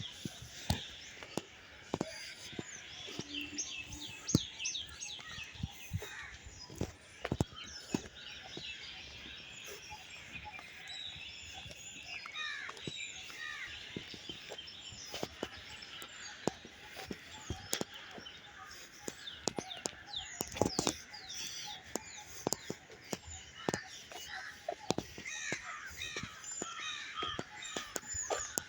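Many birds chirping and calling at once in a dense, overlapping chorus of short rising and falling notes, with scattered short clicks and knocks beneath.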